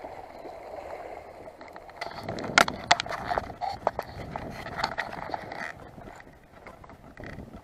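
Handling noise of footsteps on concrete and a plastic cooler box being handled. A cluster of sharp clicks and knocks comes between about two and four seconds in, over a soft steady hiss.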